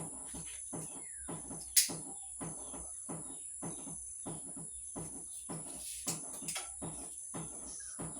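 A steady high insect buzz under a regular soft knocking, about two and a half beats a second, with a sharp click about two seconds in and a few short bird chirps.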